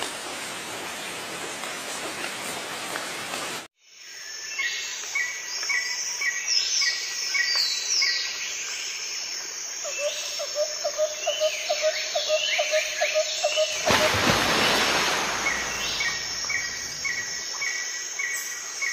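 A steady rushing noise that cuts off after about four seconds, then birds chirping and whistling: runs of short chirps about two a second, higher whistles sliding up and down, and a lower repeated note. About two-thirds of the way through, a louder rush of noise lasts about two seconds.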